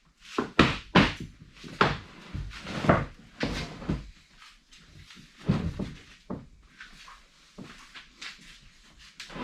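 A series of irregular knocks and clunks, about one or two a second, some louder than others, like hard objects being handled and set down.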